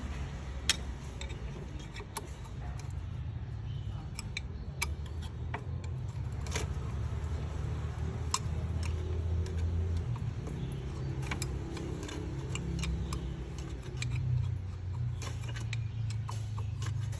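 Irregular light metallic clinks and clicks of hand tools and small metal parts being handled, over a steady low hum.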